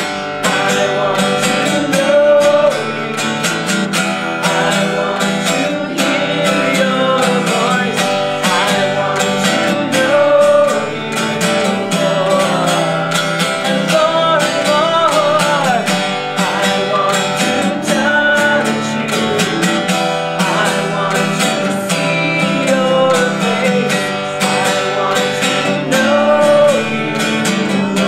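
Live music: an acoustic guitar strummed in a steady, even rhythm, with a wavering melody line above it.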